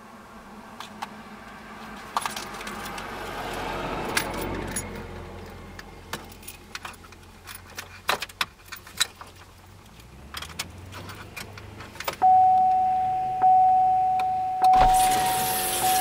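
Scattered light clicks and rattles, then from about twelve seconds in a single-pitched chime that sounds again about once a second and is the loudest thing here, with a loud rushing noise joining near the end.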